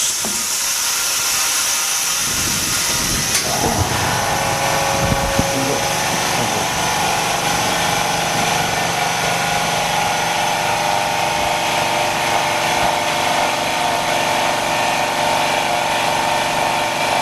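Autoclave bubble remover being pressurised by an air compressor: a steady air hiss, joined about three and a half seconds in by a motor starting up and running with a steady hum.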